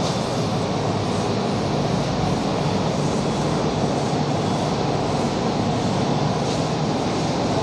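Board duster rubbed back and forth across a chalk blackboard, erasing the writing: a steady scrubbing noise.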